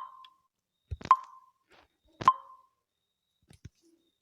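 Smartphone touch-feedback sounds: three short pops with a brief ringing tone, about a second apart, as the screen is tapped, followed by two faint taps near the end.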